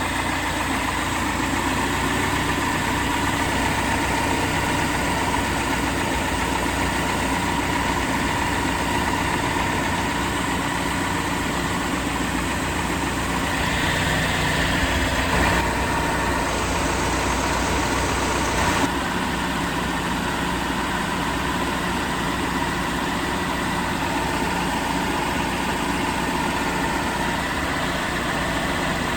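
Peugeot 206 engine idling steadily. About halfway through, a brighter hiss joins for around five seconds.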